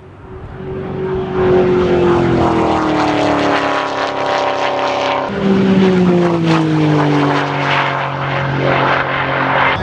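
Sports car engines at full throttle on a top-speed run, going by at speed. A steady engine note falls slowly in pitch, then about five seconds in a new, higher note takes over and falls slowly again.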